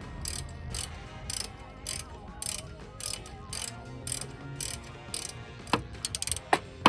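Hand ratchet wrench clicking in even back-and-forth strokes, about two a second, as skid plate mounting bolts are run in. Near the end come sharper, quicker single clicks.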